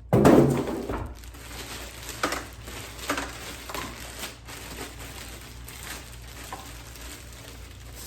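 Packaging of a new sewing machine being handled: a loud rustling scrape in the first second, then scattered crinkles and rustles.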